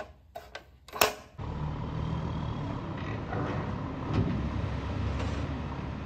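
A few clicks and a sharp plastic knock from a toy truck being handled, then a heavy dump truck's diesel engine running steadily from about a second and a half in as the truck tips its load.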